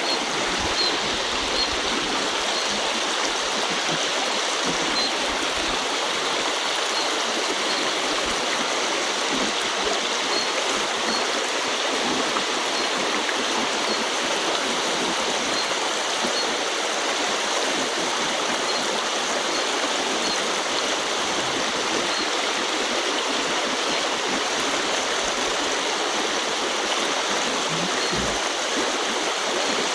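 Shallow river running over stones, a steady rush of flowing water, with faint high peeps every second or two.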